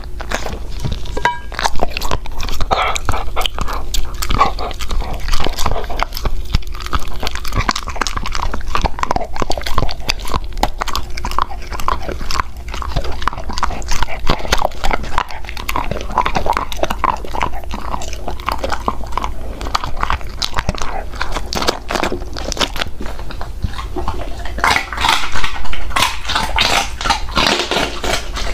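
Golden retriever biting and chewing hand-fed food, a dense run of crunching bites and chews that comes thickest near the end.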